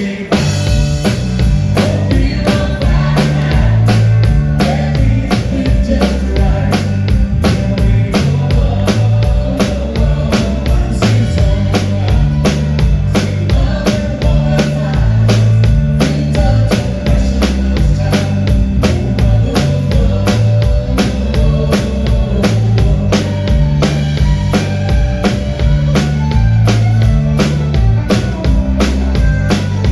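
Live country-rock band playing an instrumental stretch with no singing: a drum kit keeping a steady beat under bass and guitars. The full band comes back in loudly right at the start after a brief drop.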